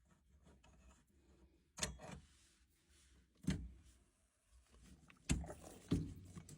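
Grips clicking and knocking on the pump union nuts as they are undone: four short sharp metallic knocks a second or two apart.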